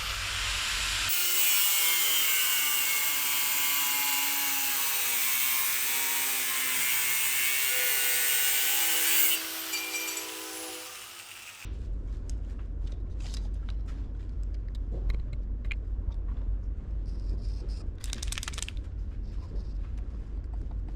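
A power saw cutting through a metal plate, its motor pitch sagging under load. The cut ends about nine seconds in and the motor winds down. Then come scattered clicks and knocks of handling over a low hum.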